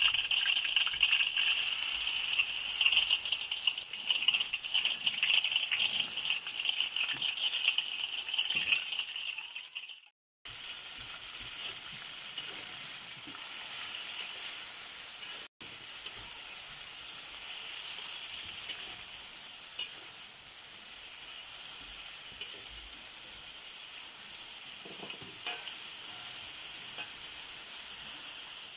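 Garlic frying in hot oil in a steel wok: a loud, crackling sizzle. After a cut about ten seconds in, chopped chicken and garlic fry with a steadier, quieter sizzle.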